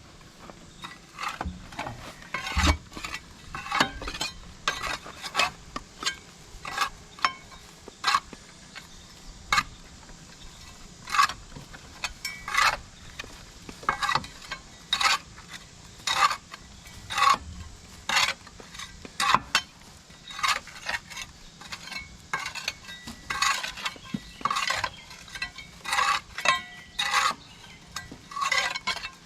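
Repeated metal scrapes and clinks at an irregular pace, about one or two a second: a tool scraping packed mud off an excavator's tracks.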